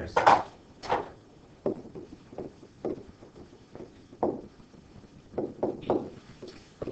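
A stylus tapping and clicking against a tablet or touch screen while writing by hand: about a dozen irregularly spaced taps.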